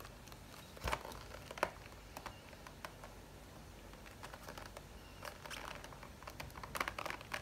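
Light crinkling and scattered small clicks and taps as the packaging of a Pilot Kakuno fountain pen is handled and opened, growing busier near the end.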